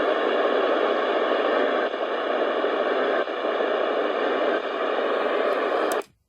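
Radio receiver static: a steady hiss with no voice or signal on it, cutting off abruptly about six seconds in.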